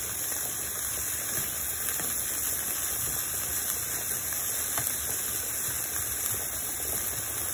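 Diced bell peppers sizzling in hot olive oil in a nonstick frying pan, a steady hiss, with a few light taps of the stirring spoon.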